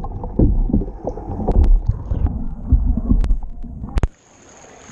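Water moving around a capsized sea kayak during a roll, heard underwater: muffled low thumps and rumble. About four seconds in, a sharp click marks the surfacing and the sound turns clear and quieter.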